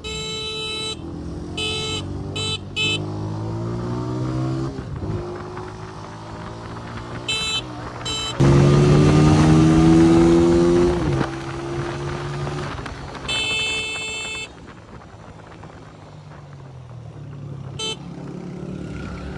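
Road traffic: vehicle engines running and changing pitch, with repeated short horn blasts. A loud engine passes close by from about eight to eleven seconds in.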